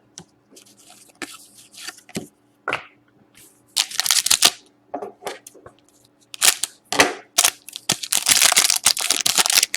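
Hockey card pack wrappers being torn open and crinkled, with cards being handled: bursts of loud crackling rustle, the longest in the last two seconds.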